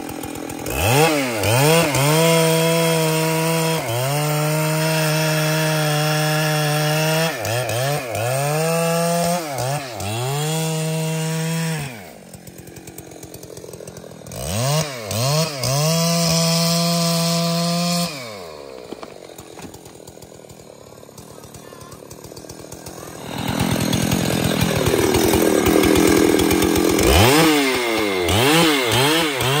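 Big Husqvarna two-stroke chainsaw run at full throttle in repeated bursts of a few seconds each, its note sweeping up and holding steady, then dropping back between bursts. It falls to a quieter idle about twelve seconds in and again from about eighteen seconds. Then it runs with a rougher, lower note for a few seconds before revving up again near the end.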